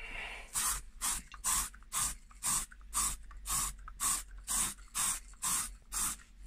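Aerosol spray paint can hissing in short pulses, about two a second, a dozen in all, after a brief steadier hiss at the start.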